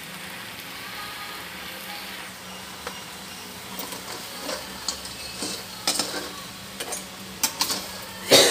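Mud crabs sizzling in salt in a metal wok, then metal tongs clicking and knocking against the wok and the crab shells as the crabs are turned over, with the loudest knock near the end.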